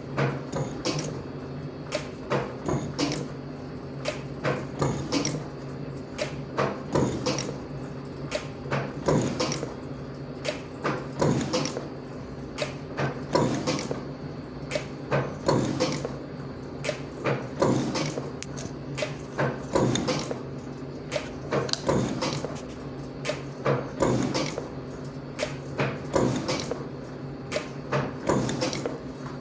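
Soviet 7A311 slotting machine cutting the teeth of a ratchet wheel: the ram strokes up and down in a steady rhythm, with a clatter at each stroke and a stronger one about every two seconds, over the steady hum of the machine's motor and drive.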